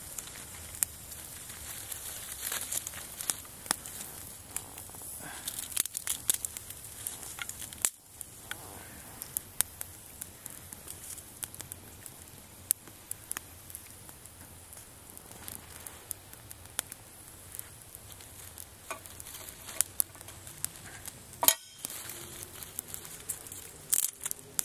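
Small kindling fire of thin twigs in a Dakota fire hole crackling with scattered sharp pops, the damp wood drying out as it burns. Partway through, the twigs rustle as they are pushed into the flames.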